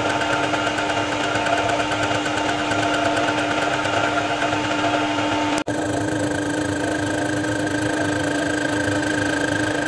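Harrison lathe running with the chuck spinning, a steady machine whine of several fixed tones, as a boring bar cuts the inside faces of the silicon-bronze-brazed chuck jaws to true them. The sound breaks off for an instant a little over halfway through, then carries on unchanged.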